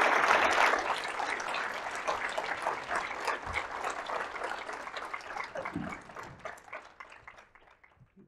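Audience applauding, loudest at the start and fading away gradually until it dies out near the end.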